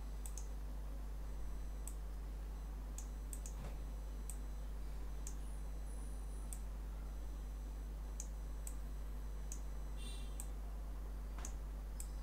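Computer mouse clicking a dozen or so times at irregular intervals, over a steady low electrical hum.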